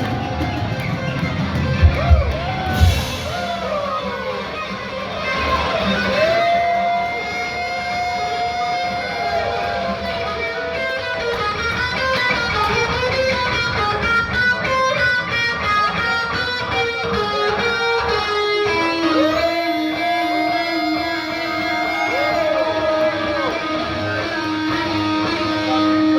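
Live heavy metal electric guitar solo, with long bent notes and fast repeated runs. There are heavy drum-like hits about two and three seconds in.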